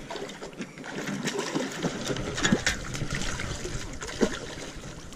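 Water splashing and trickling in short irregular bursts as a hooked largemouth bass is brought to the surface and landed.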